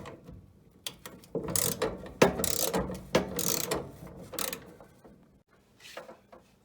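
Socket ratchet wrench clicking in quick runs of back-strokes as it loosens the sheet-metal screws holding a furnace inducer blower; a louder click stands out a little after two seconds in, then the clicking thins out near the end.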